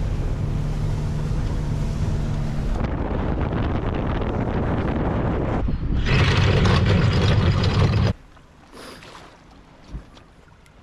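Speedboat engine running under way, with wind buffeting the microphone and water rushing past the hull, loud and steady across several cuts. About eight seconds in it cuts off abruptly to a much quieter background.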